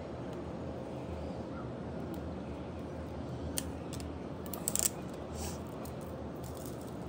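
Photocards and a clear plastic sleeve being handled: a sharp click a little past halfway, then a brief crinkle about a second later, over a steady background hum.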